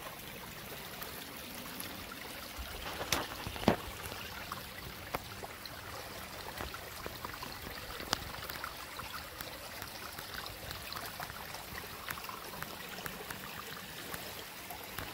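A small, shallow forest stream trickling and burbling steadily over rocks. A few sharp clicks stand out about three and four seconds in, and once more near eight seconds.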